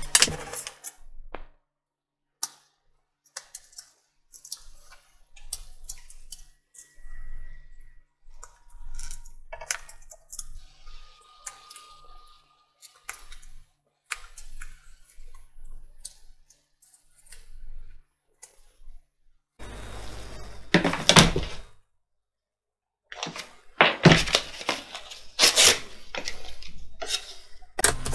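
Hand finishing of a thin MDF cutout: scattered light clicks and taps as the pieces are handled, then louder scraping and rubbing on the wood about twenty seconds in and again near the end.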